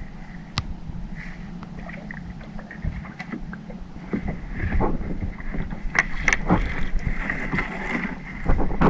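Small fishing boat's engine running steadily, with a few sharp knocks on board, the loudest about six seconds in.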